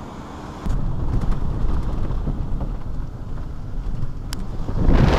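Wind buffeting the camera microphone: a loud, uneven low rumble that cuts in suddenly about a second in, with a louder rush of hiss joining near the end.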